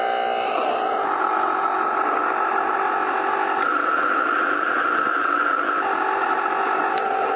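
ProCo RAT and Marshall Guv'nor distortion pedals feeding a Marshall mini-stack amp, giving a steady hiss with held whining tones whose pitch shifts a few times. This is the pedals' own noise, not guitar feedback, since the strings are held. There is a sharp click about three and a half seconds in and another near the end.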